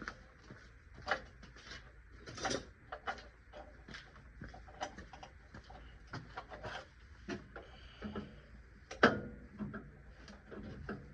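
Irregular light clicks and knocks of hand tools and metal parts being handled while working on a car, with a sharper knock about nine seconds in.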